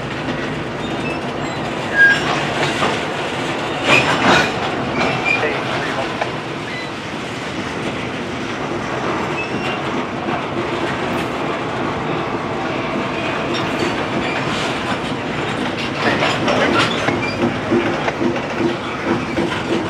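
Slow-moving loaded grain train of covered hopper cars and a BNSF C44-9W locomotive rolling past, steel wheels clicking over rail joints with a steady rumble. A few sharp clanks and brief wheel squeals come through, the clanks around two and four seconds in and again near the end.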